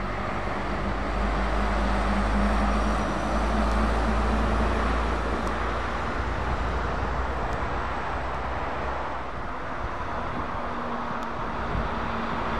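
Diesel tanker truck (MAN) passing on the road: a steady low engine rumble and tyre noise, loudest in the first few seconds and fading as it moves off. Near the end a second truck, a DAF XF with a curtain-sided trailer, comes in with its own steady engine drone.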